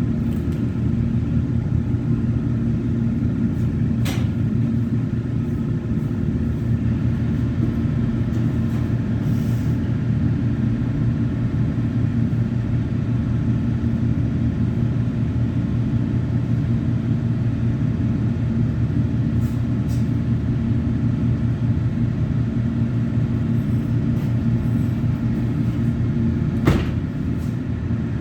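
Steady low mechanical hum running throughout, with a sharp click about four seconds in and another near the end.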